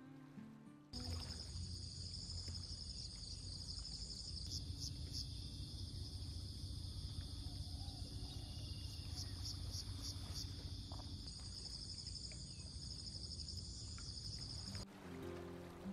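Steady insect chorus, a continuous high trill with a fine pulsing texture, over a low steady rumble. Guitar music fades out in the first second and comes back in near the end.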